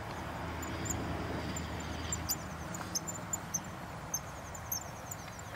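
Outdoor background of insects chirping in short high repeated notes, over a low rumble that fades out about two and a half seconds in.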